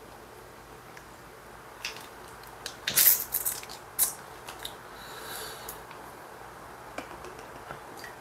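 A glass soju bottle being handled: clicks and knocks from its metal screw cap and glass, loudest in a quick cluster about three seconds in, then a short hiss.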